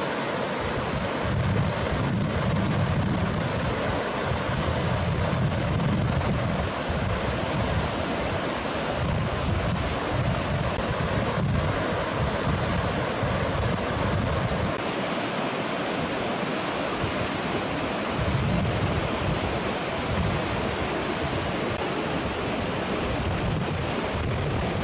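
Shallow river rapids rushing over stones in a steady roar of water, with gusts of wind buffeting the microphone every few seconds.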